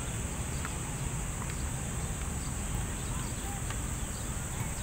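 A steady high-pitched insect drone over a low outdoor rumble, with a few short chirps about three and a half seconds in.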